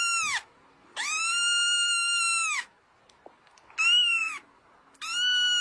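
A kitten giving a series of high-pitched meows: one trailing off just after the start, a long drawn-out one lasting about a second and a half, a short one about four seconds in, and another starting near the end.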